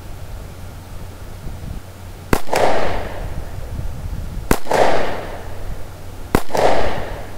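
Three shots from a Taurus PT 709 Slim 9mm pistol firing steel-case 9mm Luger ammunition, about two seconds apart. Each is a sharp crack followed by a short echo.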